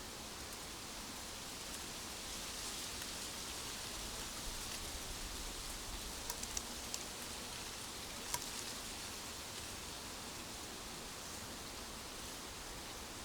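Steady natural outdoor ambience: an even hiss like leaves in wind or light rain, swelling a little a few seconds in, with a few sharp ticks and one louder click a little after the middle.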